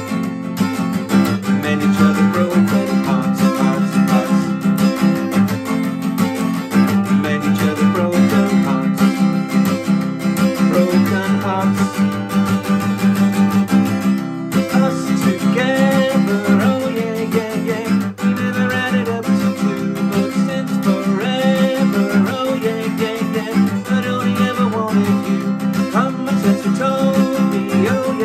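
Acoustic guitar with a capo, strummed in a steady rhythm through an instrumental passage.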